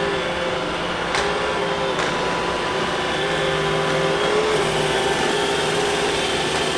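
iRobot Roomba robot vacuum running on the floor: a steady motor hum whose pitch wavers slightly as it drives, with a single click about a second in.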